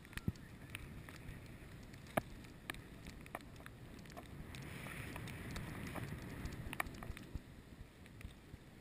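Skis sliding over snow: a soft, low hiss of the skis on the run that grows louder midway, with scattered sharp clicks and knocks.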